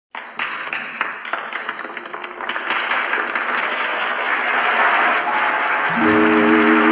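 Applause, a dense patter of clapping that grows fuller, then about six seconds in a held chord of music comes in over it.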